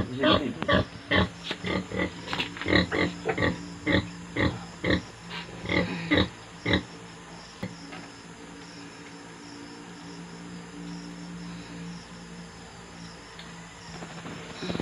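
Pig grunting in quick short calls, about three a second, which stop about seven seconds in; a faint steady hum remains after.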